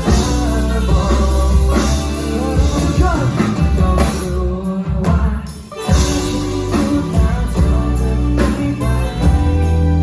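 Thai pop song played live by a band with a lead singer: drums, bass, guitar and vocals. About halfway through, the bass and drums drop out for a moment, then the full band comes back in.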